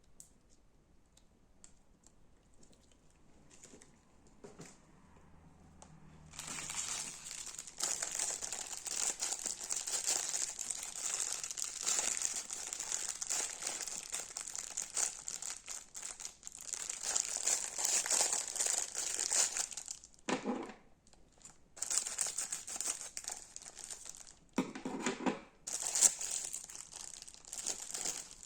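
Crunchy slime being squeezed and worked by hand: a dense crackling and crinkling that starts about six seconds in, with two short breaks of softer squishing near the end.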